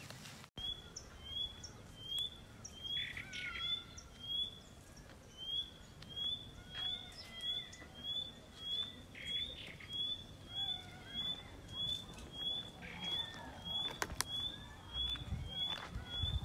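A bird repeating one short, high, slightly rising note at a very even pace, a little more than once a second, with fainter calls of other birds in between. A few light clicks come near the end.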